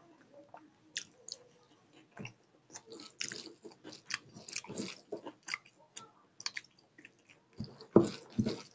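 Close-up chewing and mouth smacking of rice and egg curry eaten by hand, with irregular wet clicks and small crunches that grow busier in the second half and peak in a louder bite near the end.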